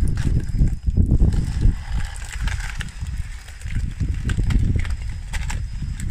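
Plastic 3D-printed track links of an RC model bulldozer clicking and clattering as the model crawls through mud and onto grass, over a low rumble that is strongest in the first two seconds.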